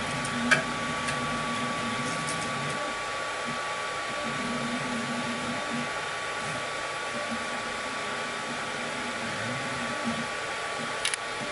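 Steel Fisher delta 3D printer printing: a steady whir of its cooling fans with a constant high tone, and the stepper motors humming in stretches of a second or two as the print head moves. A sharp click about half a second in, and another near the end.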